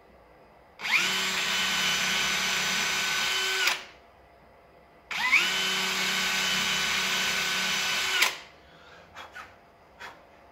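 Cordless drill boring two holes with a 3 mm metal drill bit into the underside of a stone resin basin. There are two bursts of about three seconds each; each time the motor spins up quickly, runs steadily, then stops. A few light clicks follow near the end.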